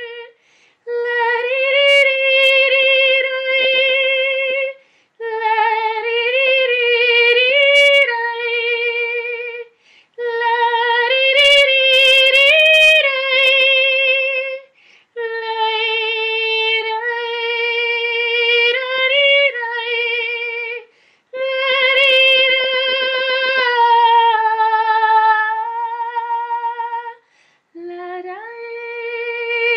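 Solo female voice singing long, held notes with vibrato, in phrases of about five seconds split by short breaths, no accompaniment. The pitch mostly stays on one note, with small turns up and down and a low note rising near the end.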